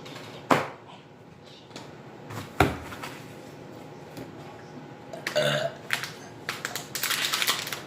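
Young men burping on purpose: abrupt loud burps about half a second and two and a half seconds in, and a longer, pitched one about five seconds in. Rapid light tapping or clicking follows near the end.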